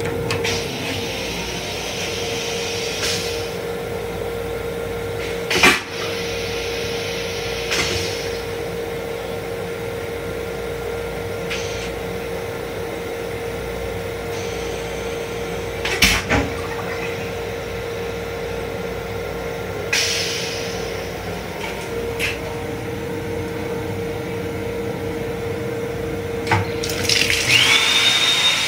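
Metro-North M7 railcar restroom: a steady hum throughout, a few sharp knocks from the toilet seat and fittings, and several short hissing rushes. Near the end the sink faucet runs into the basin with a high steady whistle.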